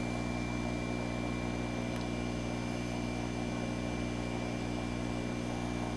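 Steady low electrical hum of running jellyfish-aquarium equipment, with a faint, thin high whine above it.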